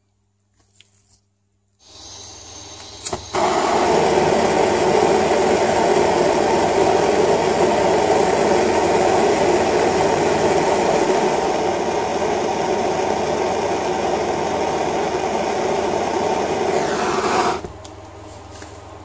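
Handheld gas torch: gas starts hissing about two seconds in, a sharp click, then the flame burns with a loud, steady rush for about fourteen seconds as it heats silver solder paste on a throttle cable's end sleeve, and cuts off suddenly near the end.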